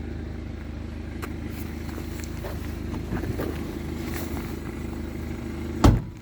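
BMW 318d's 2.0 turbo diesel engine idling steadily, with a few light clicks, and a single loud thump near the end.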